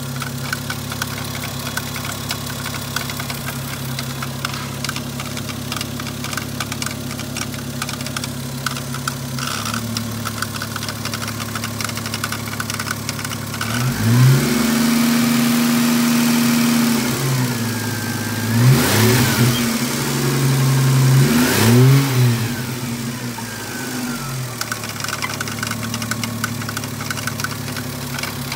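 Toyota 2JZ inline-six engine idling with a fast ticking over it, then revved up about halfway through and held for a few seconds, blipped twice, and settling back to idle. The owner calls the noise it makes strange and odd.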